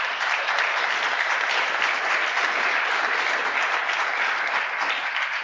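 Audience applauding, a steady round of clapping that eases off slightly near the end.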